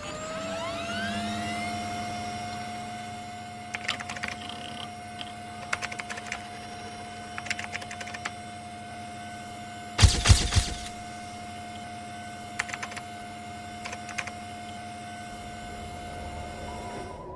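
A small electric motor spinning up with a rising whine, then running at a steady pitch, with light scattered clicks and a louder knock about ten seconds in. The motor stops near the end.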